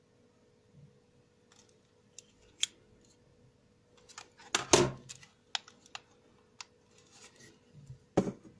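Handling noise: scattered clicks and knocks as a plastic drone remote controller and steel digital calipers are moved and set down on a table. The loudest knock comes about halfway through, another near the end.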